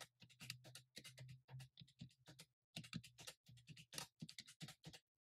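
Paper banknotes being handled: a rapid, uneven run of faint crisp clicks and flicks, with a brief pause about halfway through.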